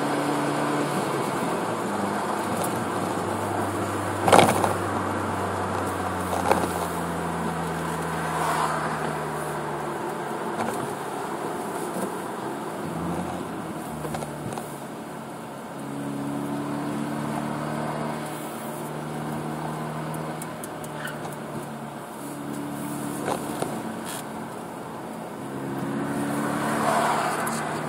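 The 1.6-litre turbo four of a Hyundai Veloster Turbo running at low revs through its Magnaflow 12886 aftermarket exhaust in light town driving, its note shifting in pitch with the throttle. Road and tyre noise come in through the open driver's window, and there is a sharp knock about four seconds in.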